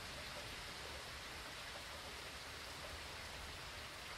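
Steady rain falling from Hurricane Florence: an even hiss of many drops.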